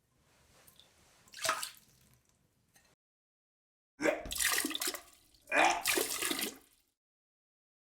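A person vomiting into a toilet: two heaves, each with retching and liquid splashing into the bowl water, after a faint short splash.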